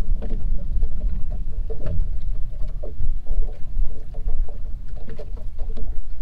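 Small aluminium fishing boat rocking on choppy water: a steady low rumble with many small, irregular knocks and slaps of water against the hull.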